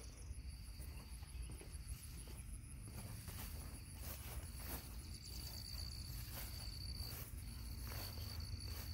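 A high, steady insect trill that breaks off and starts again a few times, over soft footsteps on grass.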